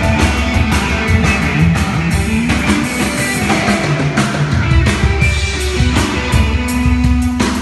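Drum kit played in a steady rock groove, with guitar music alongside.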